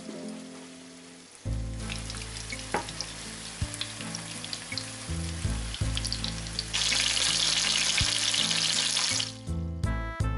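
Breaded chicken skewers frying in a pan of hot oil: a sizzling hiss with scattered pops that starts about two seconds in, grows louder near the end and then stops. Background music plays underneath.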